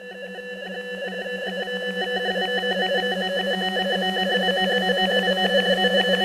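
Electronic swell sound effect: a buzzy synthesized drone of several held and warbling tones with a fast fluttering pulse, growing steadily louder.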